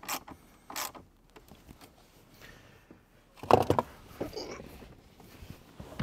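Sharp clicks and knocks of hand tools and plastic dash trim as the trim screws are put back in: a couple of single clicks at the start and a loud quick cluster of clicks about three and a half seconds in.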